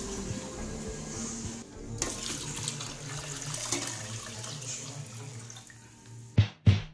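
Water poured from a jug into a metal pot of soaked rice, a steady gushing pour that starts about two seconds in and tails off before the end. Background music plays underneath and comes in loud with beats near the end.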